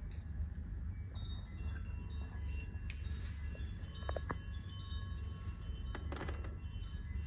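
Wind chimes ringing softly at scattered pitches, with a brief cluster of strikes about six seconds in, over a steady low hum.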